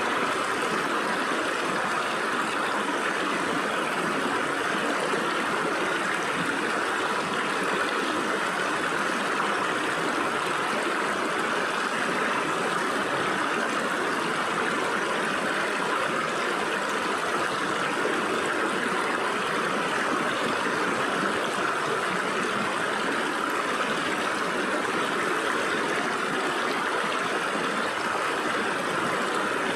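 Stream water flowing and splashing through gaps between rocks, a steady rushing babble.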